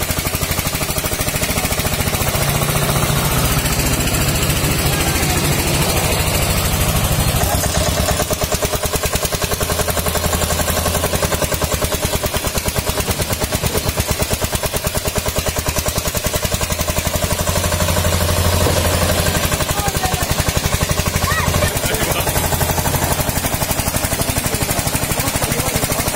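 1990 Eicher tractor's diesel engine running with a rapid, even chug, the tractor bogged down in mud.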